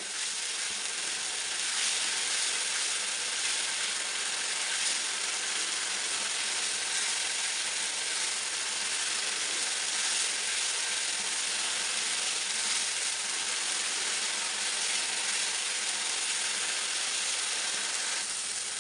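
Spice masala of onion, ginger-garlic paste, tomato and ground spices sizzling in ghee in a non-stick frying pan, a steady hiss, with the scraping strokes of a silicone spatula stirring it. It is being fried until the ghee separates from the masala.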